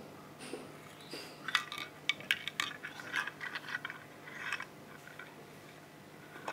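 Handling noise from wires and a small mouse circuit board being fiddled with by hand: a run of small clicks, taps and rustles, busiest in the middle.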